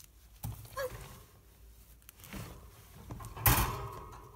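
Knocks and rustles of handling at a wire-barred pet cage, with the loudest clatter about three and a half seconds in.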